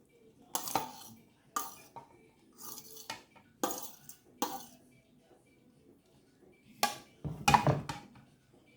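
A utensil clinking and scraping against a bowl in a string of short, separate clatters as chicken pieces are moved into it, with a quiet spell past the middle and a busier cluster near the end.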